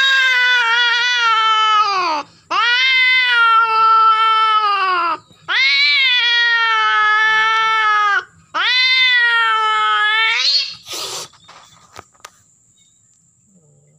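Female domestic cat in heat caterwauling while being mated: four long, loud yowls, each about two to three seconds, sliding down in pitch as it ends, with short breaks between. The calls stop about eleven seconds in with a short harsh noise.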